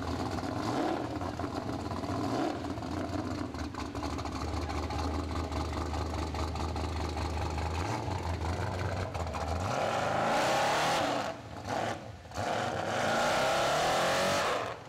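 Lifted pickup truck on mud tires, its engine rumbling low and steady as it crawls through the creek. About ten seconds in it is revved hard with tires spinning, briefly eases off twice, then revs again while throwing mud, and the engine note drops away just before the end.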